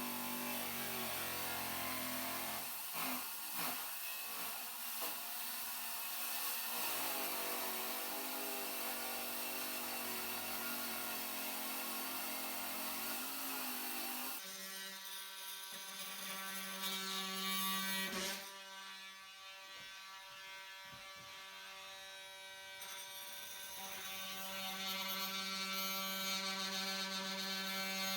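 An electric power tool running steadily. About halfway through the sound changes abruptly from a hissy whir to a steady hum.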